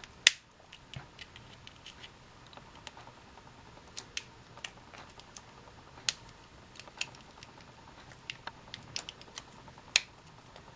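Irregular sharp clicks and small snaps as a 9-volt battery's thin steel casing is pried and bent open, with one louder snap just after the start.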